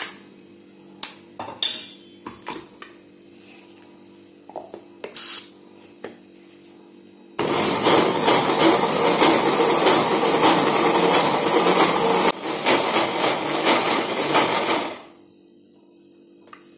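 Philips mixer grinder running with its steel jar full of soaked chana dal, grinding it to a coarse paste: a loud, steady motor-and-blade noise for about seven seconds, dipping briefly partway through, then stopping abruptly. Before it starts, there are scattered clinks and knocks of a spoon and the steel jar.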